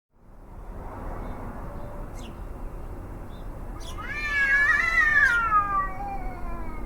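Cat howling: one long yowl about four seconds in that rises briefly and then slides down in pitch, over a steady background noise.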